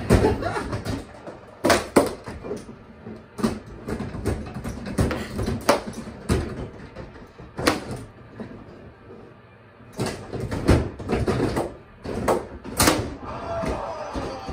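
Bubble hockey table in play: the puck and plastic player figures clack and knock under the dome as the rods are pushed, pulled and spun, in irregular sharp clatters with a brief quieter spell past the middle.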